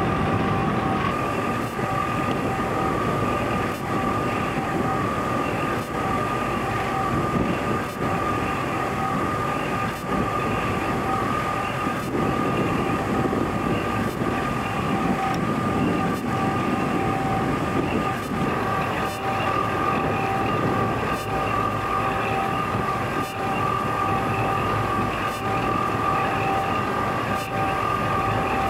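Steady rumble of a ship under way, pushing its bow through sea ice, with a constant high whine over it.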